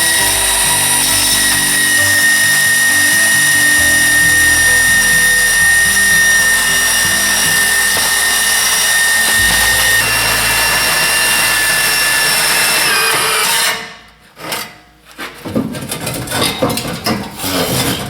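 Power tool motor running steadily under load with a high whine, spinning a bolt out under the truck for about fourteen seconds. The whine sags a little in pitch before it cuts off, and clanks and handling noises follow.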